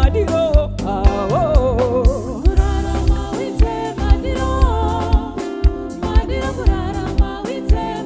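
Live band playing a song with a woman singing the lead, over drums, bass and electric guitar with a steady beat.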